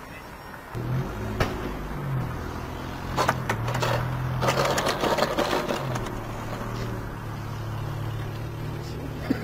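Electric motor and propeller of a foam radio-controlled Cessna 150 model running at low throttle as a steady low hum that dips in pitch a few times. From about three seconds in, rattling scrape as the model touches down and rolls on cracked asphalt.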